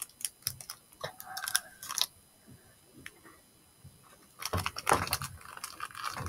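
A child chewing and crunching candy close to the microphone, in two spells of sharp crunches with a quieter pause between; the second spell, about four and a half seconds in, is the louder.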